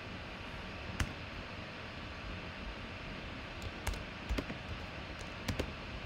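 Computer keyboard typing: a run of irregular key clicks in the second half, with a single click about a second in, over a steady hiss.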